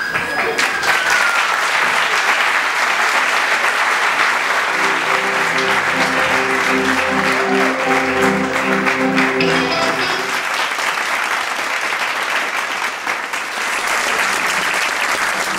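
Audience applauding steadily. A siren sound trails off about a second in, and a short stretch of music plays in the middle.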